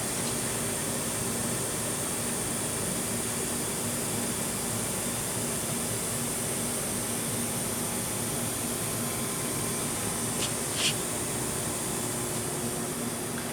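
Steady mechanical hum and hiss, fan-like, with a few faint steady tones in it; two faint clicks come near the end.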